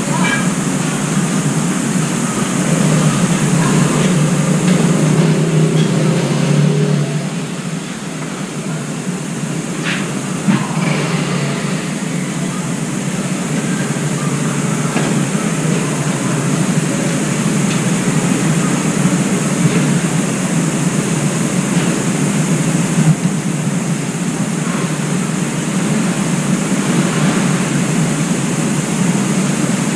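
Steady low rumble and hiss of background noise, with a brief sharp tick about ten seconds in and another about twenty-three seconds in.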